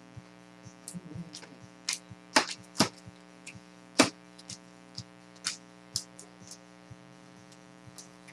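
Trading card packs and cards being handled: scattered short clicks and brief crinkling rustles of wrappers and card stock, over a steady electrical hum.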